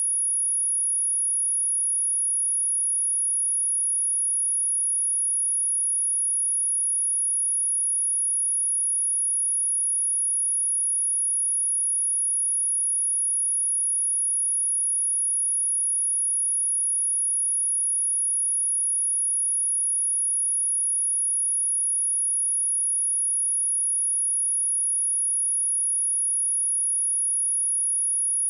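A pure sine-wave test tone at 10367 Hz, held steady at one high pitch and one level with nothing else.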